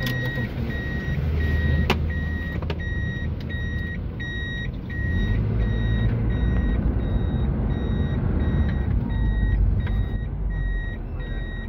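Road and engine noise inside a moving car's cabin, with a steady electronic beep repeating a little more than once a second throughout.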